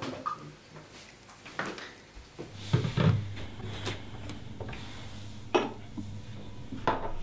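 Kitchen cupboard and dishes being handled: a few separate knocks and clinks, the loudest a thump about three seconds in.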